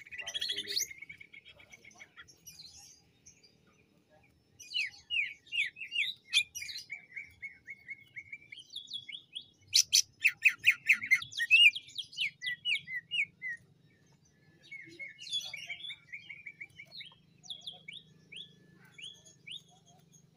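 Male cucak ijo (green leafbird) singing in phrases of rapid repeated sharp, chopping notes, with short pauses between the phrases. The loudest phrase comes about halfway through.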